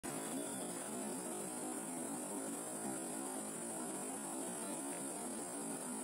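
Muddy water pouring steadily over a low man-made weir, a constant rushing with a thin steady high hiss above it.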